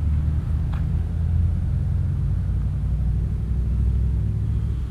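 Steady low rumble of a motor vehicle engine running, with one faint tap about three-quarters of a second in.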